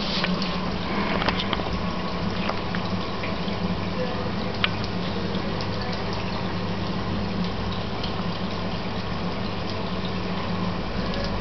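Water running steadily from a leaking washing machine, a continuous gush with a low steady hum underneath and a few faint ticks.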